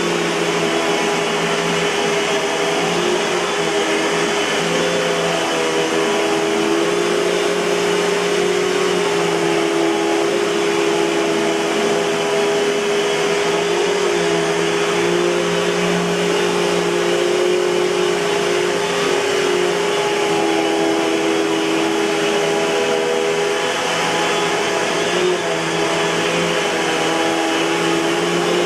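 Eureka Boss 6833B canister vacuum cleaner running steadily, its motor hum and airflow rush continuous, with the pitch wavering slightly.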